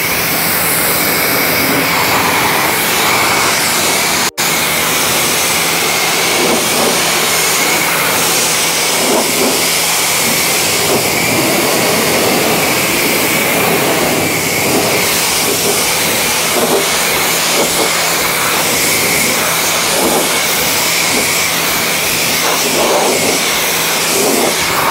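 Pressure washer spraying a steady jet of water onto a car's painted body panels to rinse off dirt, with the pump's motor humming underneath. The spray cuts out for an instant about four seconds in.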